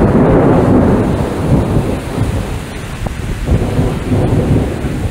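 Thunder rumbling loudly through a phone microphone, strongest in the first two seconds, dying down, then swelling again in a second roll about three and a half seconds in.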